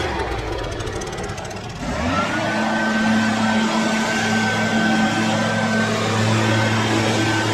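Small gas engine of lawn-care equipment, speeding up about two seconds in and then running steadily at high throttle.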